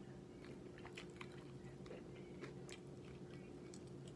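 A person chewing food, with faint scattered clicks of mouth and fork, over a steady low hum.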